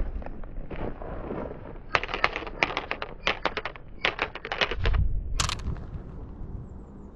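Glass marbles clicking against one another as they roll down a wooden marble-run track and drop among other marbles, in quick clattering runs of clicks from about two seconds in. A low thump and one sharp, bright click come about three-quarters of the way through.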